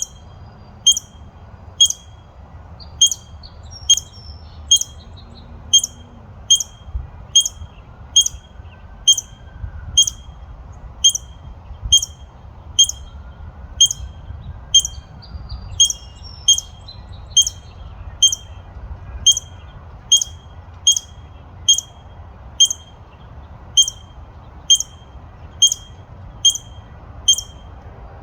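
Squirrel barking: one short, high-pitched bark repeated at an even pace, a little more than once a second, like hiccups.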